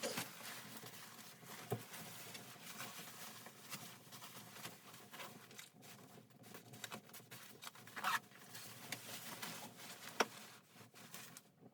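Close rustling and pattering, with many small clicks and a few sharper taps about two, eight and ten seconds in.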